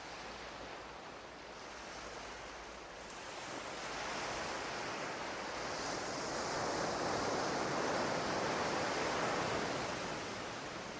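A steady rushing noise with no tune or voice in it, swelling to its loudest about two thirds of the way through and easing off near the end.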